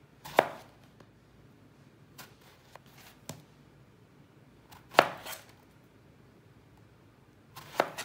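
Chef's knife slicing small eggplants into rounds, each cut ending in a sharp knock of the blade on a plastic cutting board. A few irregularly spaced cuts with faint ticks between, the loudest about five seconds in.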